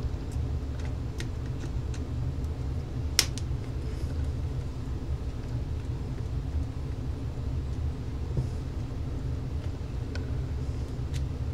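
Small screwdriver turning out screws from the metal battery terminals on a cordless phone's circuit board: a few faint clicks and one sharp click about three seconds in, over a steady low background hum.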